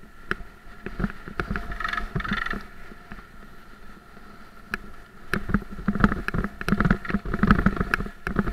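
Haibike Trekking 4.0 e-bike ridden over a rough sandy dirt track: clusters of knocks and rattles as it jolts over bumps, busiest about a second in and again from about five seconds in. Beneath them run a low tyre-and-wind rumble and a steady high whine from the drive motor.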